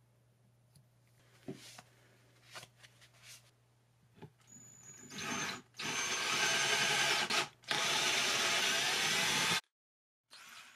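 Power drill spinning a tap to chase a threaded hole in the tailstock turret casting, running in spurts with two short pauses before stopping abruptly. Before it, a few faint scrapes and clicks of a sharpening stone on the bare machined metal.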